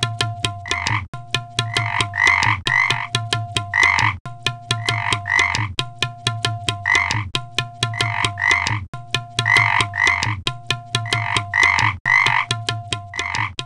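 Electronic background music with a steady, looping rhythm: quick clicks, repeated croak-like blips, and a held middle note over a steady bass line.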